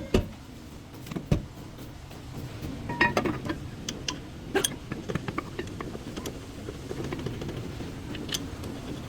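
Hand tools and metal brake parts clicking and knocking now and then during rear brake work, over a steady low background hum. The knocks are scattered, with a small cluster about three seconds in.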